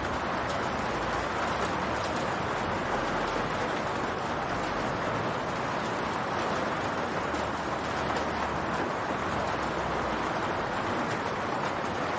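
Rain falling on a roof: a steady hiss of rain with many small drop ticks.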